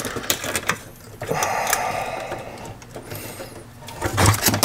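Sheet-metal tuner chassis being handled and shifted on a wooden workbench: a few sharp clicks and knocks, then a rough scraping noise for about a second, and more clicks near the end.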